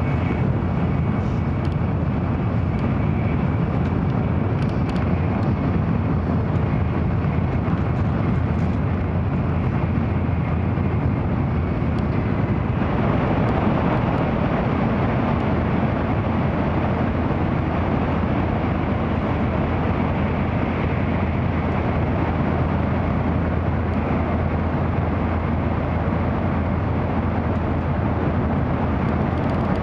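Cabin noise inside an N700-series Tokaido Shinkansen car running at speed: a steady rumble and rush of wheels on rail and air along the train, a little brighter from about halfway through.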